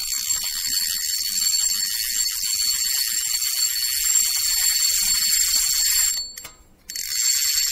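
Logo-intro sound effect: a bright, high jingling shimmer with two steady ringing tones in it. It drops away about six seconds in, then comes back near the end.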